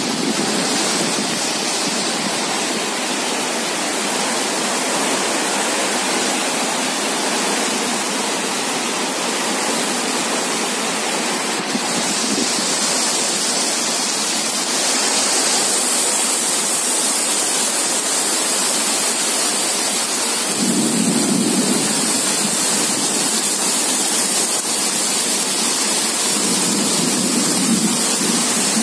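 Heavy rain pouring steadily onto tiled roofs, a dense even hiss that grows a little louder in the second half.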